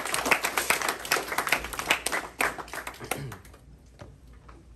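Small audience applauding, then dying away about three and a half seconds in.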